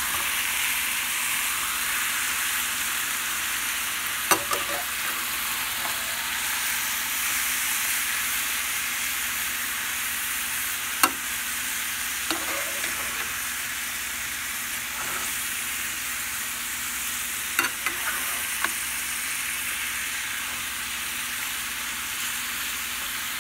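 Chicken pieces sizzling steadily in oil in a stainless steel pan, with a few sharp clinks of a slotted metal spatula against the pan as the pieces are stirred and turned.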